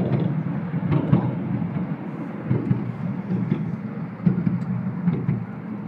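Ride-on miniature railway train running along its track: a steady low rumble of the cars' wheels on the rails, with irregular clicks and knocks.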